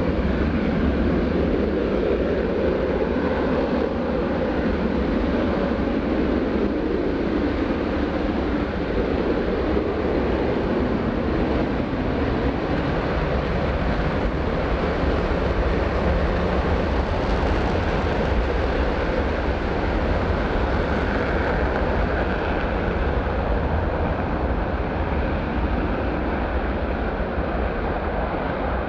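A B-1B Lancer bomber's four afterburning turbofan engines at takeoff power, with the afterburners lit for the takeoff run: a loud, steady noise with a deep low rumble.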